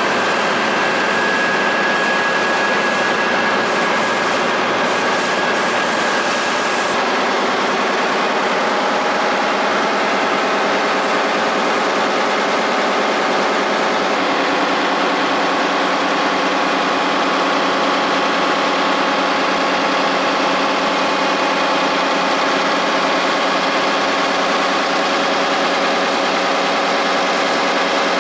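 Heidelberg Mercury web offset press running in production: a loud, steady mechanical din of rollers and drives with several constant whining tones. Its character shifts slightly about 7 and again about 14 seconds in.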